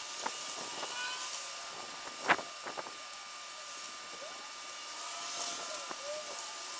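Outdoor ambience: a steady hiss, with a sharp click about two seconds in and a few short whistled glides in the second half.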